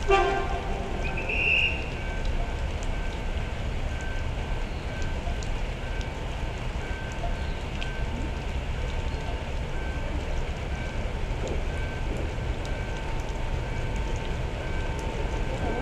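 Steady rain falling over a low, constant rumble. A brief high-pitched tone sounds about a second and a half in, and a faint short beep repeats at a regular pace.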